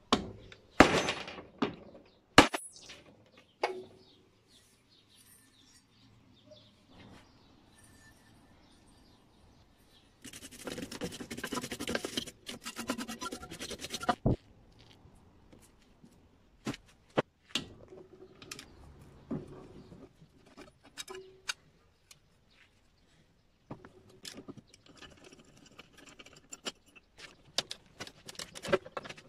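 Hand-tool work on a small Honda mower engine. It opens with several sharp knocks of a wooden mallet on the flywheel. A few seconds of rough scraping noise come about ten seconds in, and quick metallic clicks of a wrench turning bolts on the engine block come near the end.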